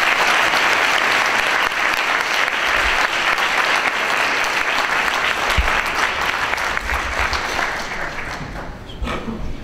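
Audience applauding with dense, sustained clapping that tapers off near the end.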